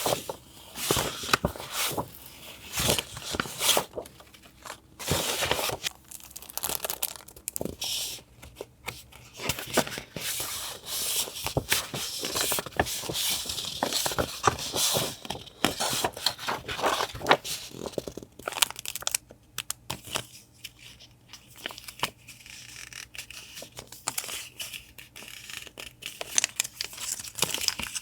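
Paper and wrapping being handled close up: crinkling, rustling and tearing in many short, irregular sounds.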